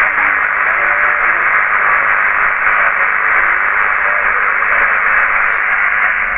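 Steady SSB receiver hiss from a homebrew BITX (Bixen) HF transceiver's speaker tuned to the 40 m band, with no station transmitting. The hiss is band-limited and even, and faint wavering traces of weak signals sit underneath it.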